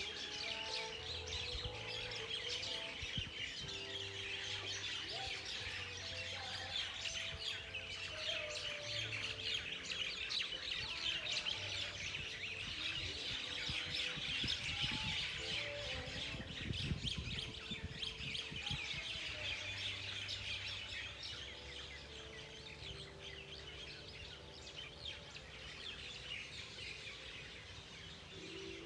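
A large number of birds chirping densely and continuously, a roosting-time chorus that thins a little near the end. Wind gusts rumble on the microphone around the middle.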